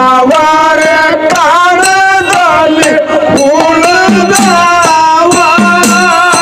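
A dollina pada, a Kannada folk song, sung by male voices through a PA system, with a long, wavering sung line. Drums keep a steady beat, with low drum strokes becoming prominent in the second half.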